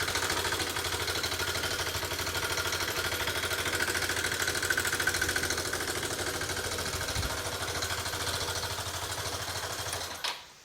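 Yamaha Cygnus X scooter's single-cylinder four-stroke engine idling with an abnormal noise, then stopping near the end with a click. The uploader traces the noise to oil starvation: water from short, cold trips turned the oil to sludge that blocked the oil line and wore the camshaft, and the engine would not start two days later.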